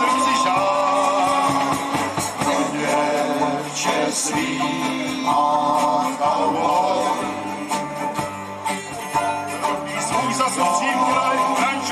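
Acoustic folk-country band playing live: strummed acoustic guitars and a banjo carrying a steady rhythm under a sustained melody.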